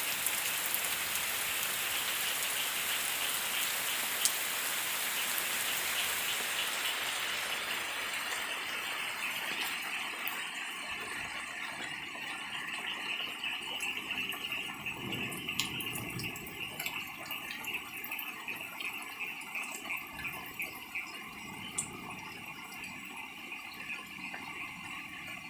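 Rain falling, heavy at first and easing after about seven seconds into lighter rain with scattered drips.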